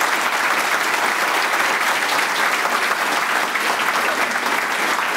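Audience applauding steadily, many pairs of hands clapping together.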